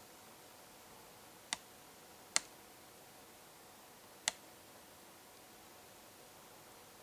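Three sharp, isolated clicks a second or two apart, over a faint steady hum.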